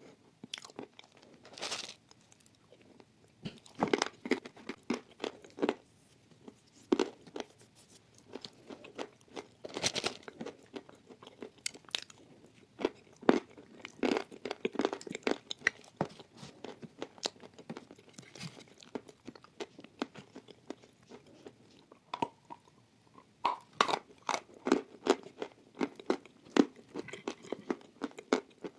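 Close-miked eating of thick white chalk paste: chewing and mouth sounds made up of many short, irregular wet clicks and crunches.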